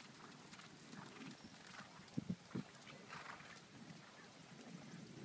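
Faint hoofbeats of a horse moving on sand arena footing, with a few louder thumps a little after two seconds in.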